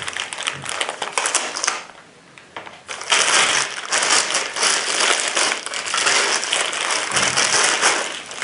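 Packaging crinkling and rustling as it is handled, likely the scope being taken out of its wrapping, in two stretches: briefly at the start, then louder and continuous from about three seconds in.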